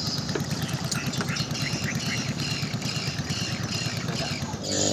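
Small boat engine running with a rapid, even beat. Near the end a louder, steadier engine tone comes in.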